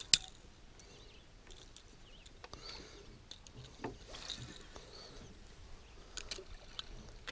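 Small splashes and scattered light clicks as a hooked smallmouth bass is gripped and lifted at the side of an aluminium boat. One sharp click just after the start is the loudest sound.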